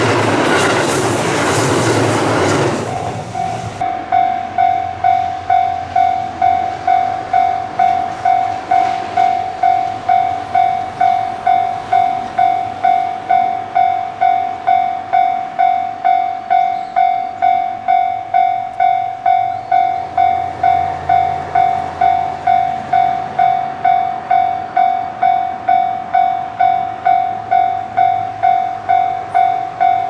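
A diesel railcar rushes past for the first few seconds, then a level crossing's warning bell rings on alone, a steady, even ding-ding at nearly two strokes a second.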